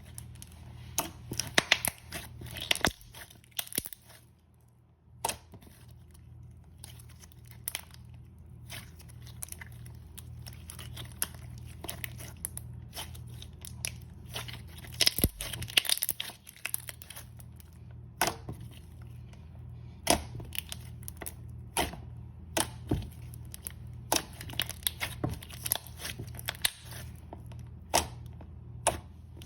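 Hands poking, stretching and squishing a thick slime with boba beads, giving irregular crackles, pops and tearing sounds, over a faint steady low hum.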